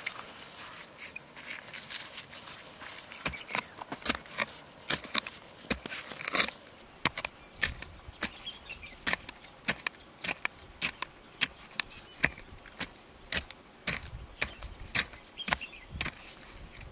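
A short-handled hand digging tool chopping and scraping into stony, gravelly soil: gritty scraping at first, then sharp strikes about twice a second.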